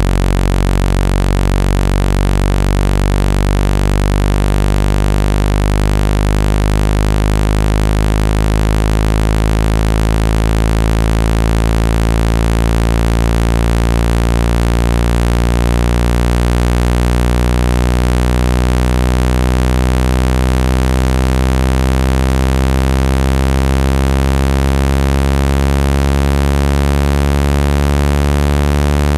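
Synthesized low-pitched water-eject tone, a loud, steady buzz rich in overtones whose pitch creeps slowly upward, played to shake water out of a speaker grille.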